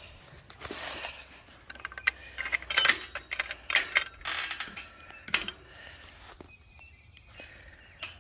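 Metal clinking and rattling in irregular clusters of sharp clinks, the loudest about three seconds in, then fading to a few light knocks.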